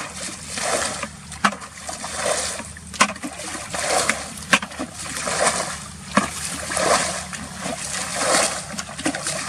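Water splashing in a steady rhythm, about one splash a second, with a few sharp knocks among them.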